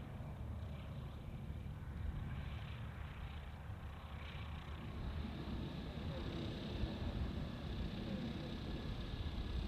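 A distant engine running steadily under a low rumble of wind on the microphone, with a faint pitched hum growing in about halfway through.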